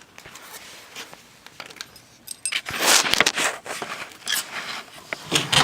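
Handling noises from tools and parts being worked by hand: faint scattered clicks at first, then, from about halfway, a busy run of sharp clicks, rattles and short scrapes.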